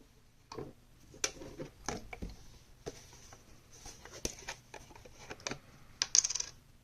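Small metal parts and tools of a partly disassembled folding knife clicking and clinking as they are handled on a hard surface, with a quick rattle of ringing clicks about six seconds in, the loudest.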